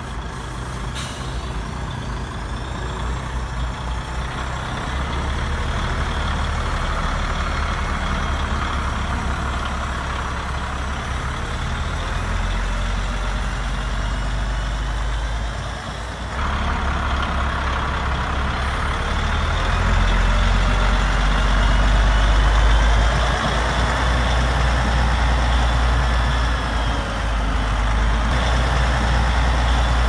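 Simulated diesel truck engine sound from a radio-controlled Scania tipper truck, running steadily with a deep drone and a faint high whine. It gets louder in the last third.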